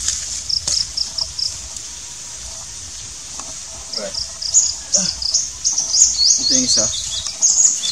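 A small bird calling in high, thin chirps: a few short even notes about half a second in, then from about four seconds a quickening series of rising chirps. Insects buzz steadily underneath.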